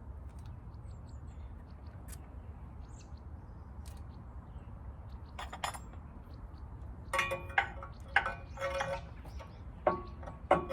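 Metal parts clinking and ringing as they are struck and handled: a few scattered sharp clicks, then a quick run of ringing clinks in the last few seconds, over a steady low hum.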